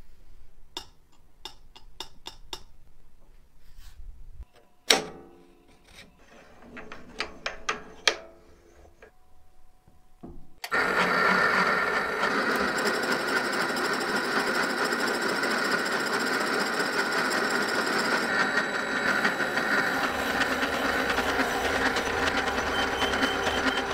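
A few light clicks and knocks, two of them sharper with a brief ring. About eleven seconds in, a small benchtop metal lathe starts and runs steadily, turning a wooden dowel.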